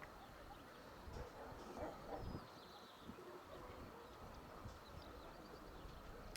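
Quiet open-air ambience: a faint low wind rumble with a few faint bird calls about two seconds in.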